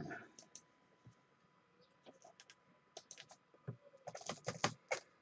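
Typing on a computer keyboard: faint, scattered keystrokes, then a quick run of clicks about four seconds in.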